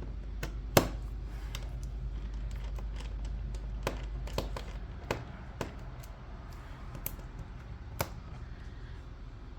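Scattered light clicks and taps of a small screwdriver and hands working the screws out of a laptop's plastic bottom panel, the sharpest click about a second in, over a low steady hum.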